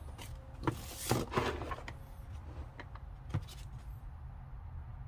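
A hard plastic tool case being handled and opened: a few sharp clicks and knocks and a brief rustle in the first two seconds, more clicks a little past the middle, over a steady low hum.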